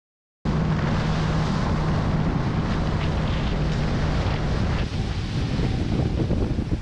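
Wind buffeting the camera microphone and water rushing along the hulls of a Tornado catamaran sailing fast in strong wind, cutting in suddenly about half a second in, with a low steady hum during the first few seconds.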